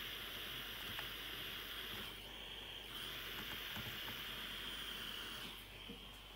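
Gas (butane) soldering iron hissing steadily as its tip is held on a wire joint on a power supply circuit board. The hiss dips briefly about two seconds in and stops shortly before the end as the iron is lifted away.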